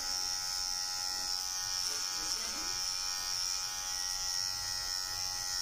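Electric hair clipper with a comb guard buzzing steadily as it cuts short hair at the back of the neck.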